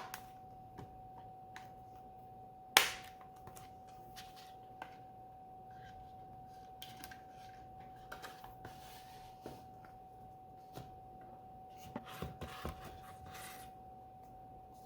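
Sharp clicks and knocks of Blu-ray discs and cases being handled during a disc change. The loudest come at the start and about three seconds in, with smaller clicks scattered through and a cluster near the end, over a faint steady tone.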